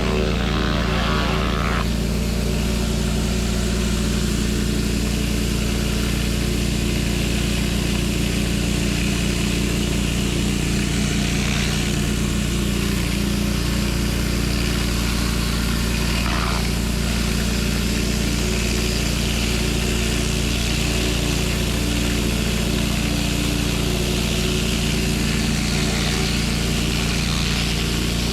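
Pressure washer's engine running steadily, with an even hiss over it.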